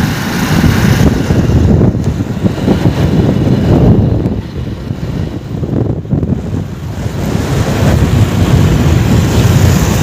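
Wind rushing over the microphone of a moving motorcycle, with the bike's engine running underneath. The rush eases a little about halfway through, then builds again.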